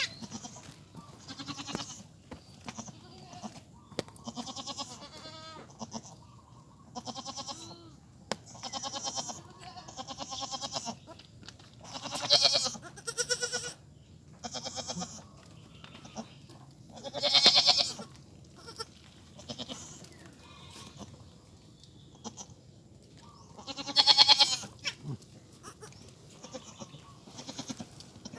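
Goats bleating, a long series of separate calls with pauses between, three of them much louder than the rest.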